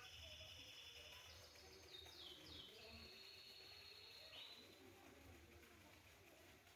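Faint birdsong: high, steady trills, with a few quick falling notes about two seconds in and a rising note around four and a half seconds.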